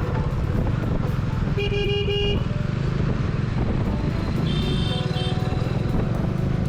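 Single-cylinder motorcycle engine of a Bajaj Dominar D400 running on the move, heard from the bike itself. A vehicle horn honks briefly about one and a half seconds in, and a second, higher-pitched horn sounds briefly near the five-second mark.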